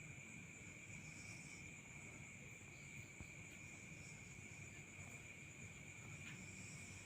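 Faint, steady high-pitched insect drone at two pitches, one high and one very high, unbroken throughout, over a low even hum.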